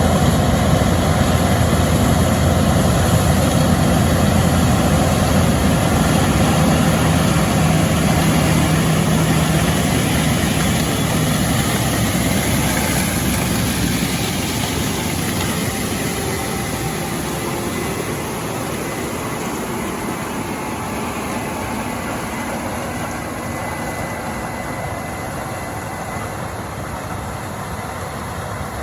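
Large diesel engine of farm harvest machinery running steadily, slowly getting quieter over the second half.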